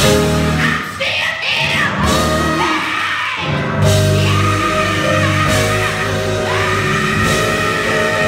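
Live gospel music: a woman's lead vocal over keyboard and drums, with the band's low end filling in fuller about four seconds in.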